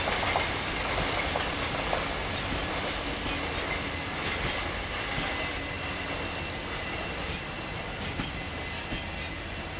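Indian Railways express passenger coaches rolling steadily past on the track: a continuous wheel-on-rail rumble with irregular clicks and knocks over rail joints, and short high squeals from the wheels.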